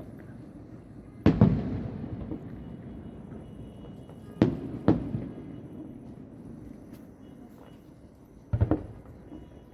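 Aerial firework shells bursting about a kilometre away: a boom a little over a second in, two more half a second apart around the middle, and a quick double boom near the end, each followed by a rolling, echoing rumble.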